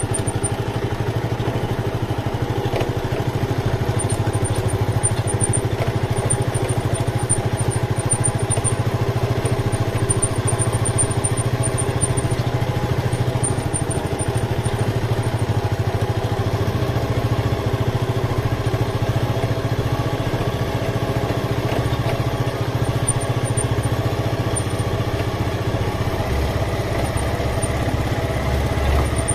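Motorcycle engine running steadily while the bike is ridden. A deeper low rumble builds up in the second half.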